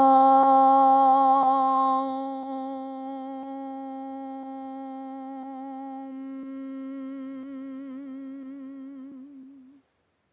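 A single long 'om' chanted by a woman's voice on one steady low note. The open vowel closes into a hummed 'mmm' about two seconds in, and the note wavers slightly before fading out near the end.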